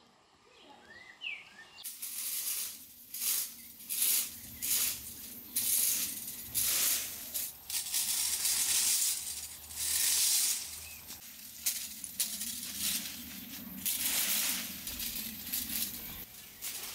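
A few faint bird chirps, then from about two seconds in a rake scratching over dry cut grass and bare soil in irregular rasping strokes, roughly one a second.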